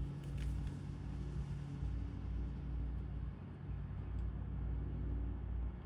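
Steady low rumble and hum, with a few light clicks about half a second in.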